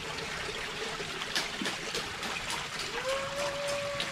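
Shallow creek water trickling, with small splashes and sloshing as a hand net is worked through the muddy water. A steady held note comes in about three seconds in and lasts a little over a second.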